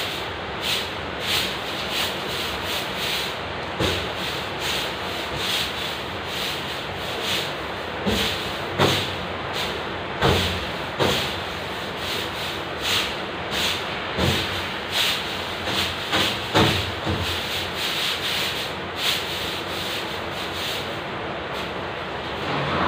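A long-handled broom brushing against a painted wall and ceiling, swept in irregular strokes about one or two a second, over a steady background hiss.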